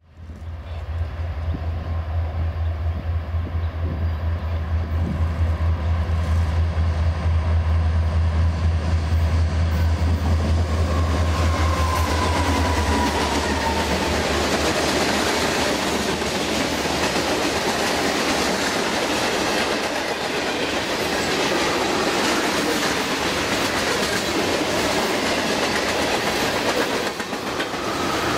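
Long freight train of hoppers, boxcars and tank cars rolling past, its steel wheels clacking over the rail joints. A strong low hum in the first half fades out about halfway through.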